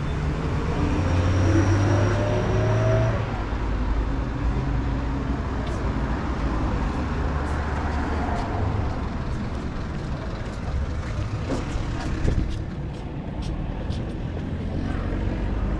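City street traffic: a passing vehicle's engine rumbles loudly and rises in pitch as it accelerates in the first few seconds, then eases into a steadier low traffic rumble, with a few light clicks near the end.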